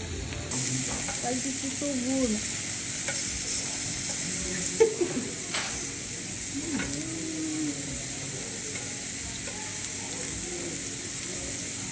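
Meat sizzling on a ridged grill pan over a portable gas burner, a steady high hiss, with one sharp click a little under five seconds in.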